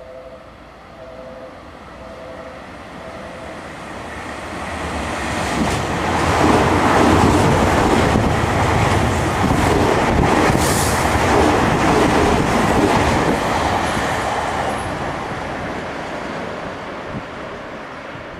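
Tokyu 5050 series ten-car electric train passing through a station at speed without stopping. The rumble and clatter of its wheels build over a few seconds, stay loud for several seconds, then fade away. During the first few seconds a two-note tone pulses on and off.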